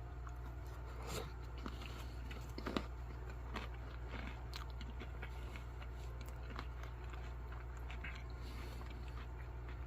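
A person chewing food: faint, scattered crunches and mouth clicks over a steady low hum.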